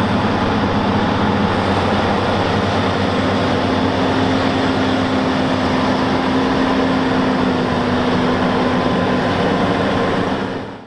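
Diesel engine of a Caterpillar Challenger tractor running steadily with a low drone over heavy mechanical noise. It fades out at the very end.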